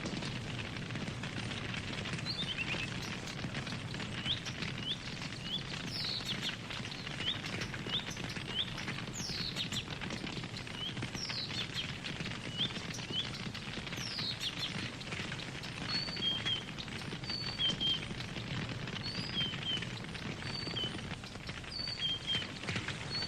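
Wood campfire crackling steadily with a continual scatter of sharp snaps. Small birds chirp over it from a few seconds in: short repeated notes, a few falling whistles, then paired two-note calls in the latter half.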